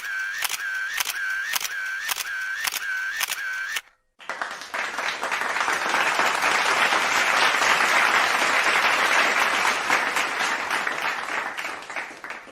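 A rapid series of camera shutter clicks, about two a second, stops about four seconds in. A short gap follows, then a crowd's applause that builds up and fades away near the end.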